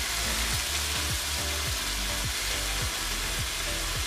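Chicken pieces frying in hot olive oil in a wok, sizzling steadily.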